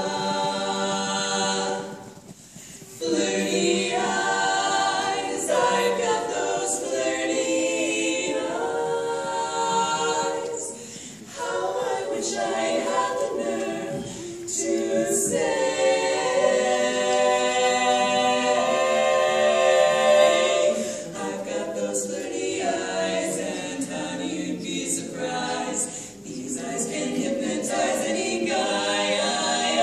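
A women's vocal quartet singing a cappella, several voices in harmony, in sung phrases with short breaks between them.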